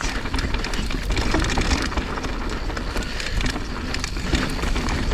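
Mountain bike descending a loose dirt trail: wind buffeting the on-board microphone, with tyres crunching over gravel and the bike rattling in a constant scatter of small clicks.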